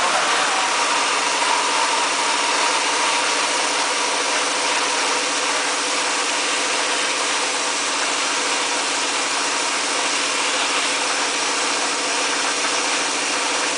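A 5-gallon water-bottle rinsing, filling and capping machine running: a steady mechanical hum over an even hiss, unchanging throughout.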